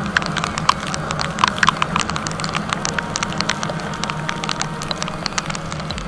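Rain drops tapping irregularly and sharply on the camera over the steady hum of a Yamaha R15 V3's single-cylinder engine cruising on a wet road.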